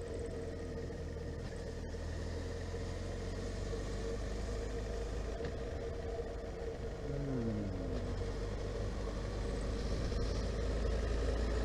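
Honda CB1300SF's inline-four engine running on the move with wind rush, its engine note falling briefly about seven seconds in.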